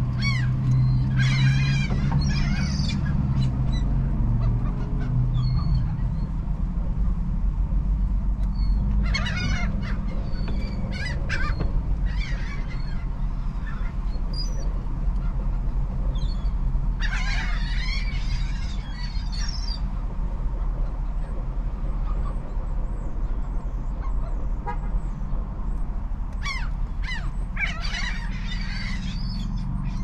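A flock of laughing gulls calling in four short bursts of chattering calls, with quieter stretches between. A steady low rumble runs underneath, strongest in the first few seconds.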